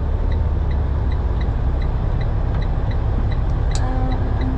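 Semi-truck diesel engine running with a steady low rumble heard inside the cab, while the turn signal ticks evenly about three times a second.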